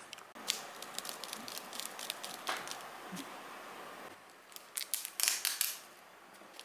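Crinkling and rustling of cake packaging being handled and peeled open, with many small clicks and taps, busiest at the start and again near the end.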